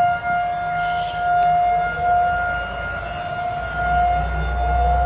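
Outdoor tornado warning siren sounding a steady single tone during its test, its loudness slowly swelling and easing as the sound sweeps around.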